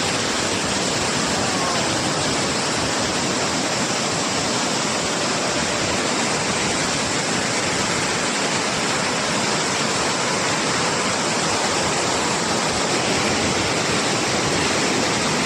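Swollen floodwater rushing past, a loud, steady, unbroken rush of fast-moving water.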